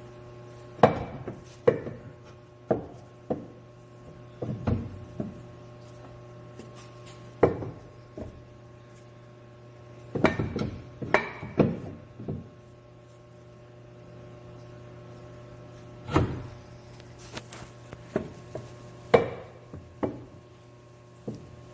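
Irregular knocks and clunks of metal parts and tools being handled in a cramped space under a car, some in quick clusters, over a steady hum.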